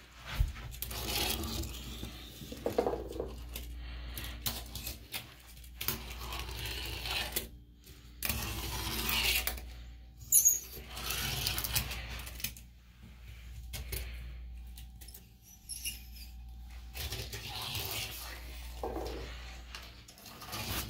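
A small fingerboard clattering and rolling on a ceramic sink: many sharp clicks and taps as the board lands and flips, between stretches of wheels and deck scraping over the glazed surface.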